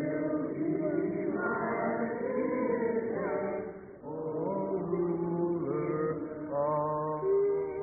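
Church congregation singing a hymn together, men, women and children's voices, with a brief break between lines about four seconds in.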